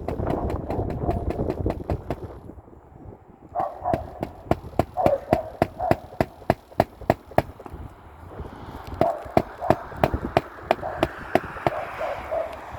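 Hammer driving roofing nails into shingles in rapid, even blows, many with a short ringing note, after a brief pause a couple of seconds in.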